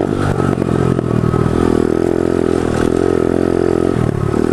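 SSR DX 110cc pit bike's single-cylinder four-stroke engine running under throttle while riding over rough dirt. Its note drops right at the start, holds, dips briefly about four seconds in and picks up again.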